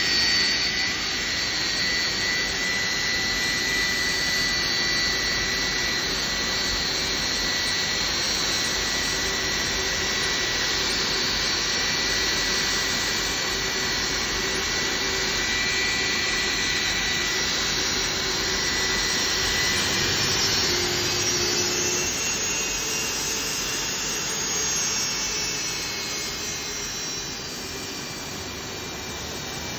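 Boeing 757 freighter's jet engines running at low taxi power as the aircraft rolls past: a steady rushing noise with high-pitched whines. The whine shifts in pitch about two-thirds of the way through, and the sound eases off slightly near the end.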